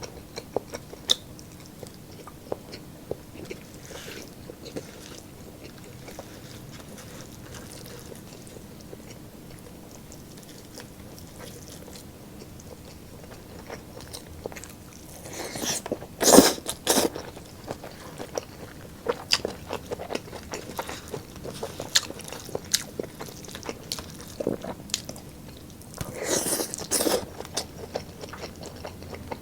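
Close-miked eating: chewing, biting and crunching of roast pork ribs and chicken, with many small mouth clicks and two louder crunchy bursts, one about halfway and one near the end.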